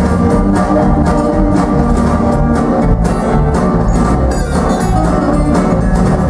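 Live band music: violin over electric and acoustic guitars, bass guitar and drums, with a steady beat.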